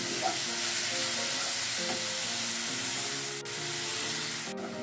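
Ground chilli, shallot and garlic paste sizzling in hot oil in a wok as it is stirred with a wooden spatula, sautéed until fragrant. There is soft background music, and the sizzle breaks off for an instant near the end.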